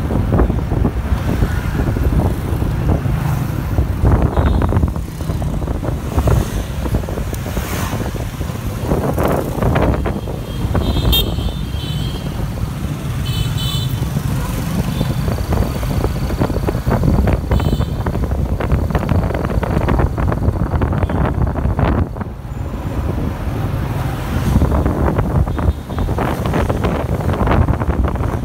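Wind rushing over the microphone on a moving motorbike in dense scooter traffic, with engines running throughout. There are a few short horn beeps about eleven seconds in and again a couple of seconds later.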